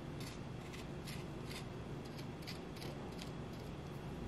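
Chef's knife cutting into the flesh of a halved ripe papaya: a series of short, crisp, irregular cuts and scrapes around the seed cavity, about ten in a few seconds.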